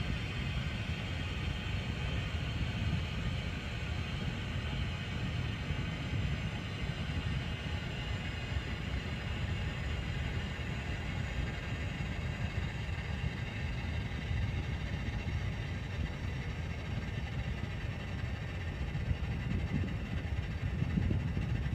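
Floor-standing air conditioner (model AF-TS151WLH) running with a steady low rumble and a fainter whirring hiss above it, growing slightly louder near the end. This is the odd running noise the owner reports from the unit.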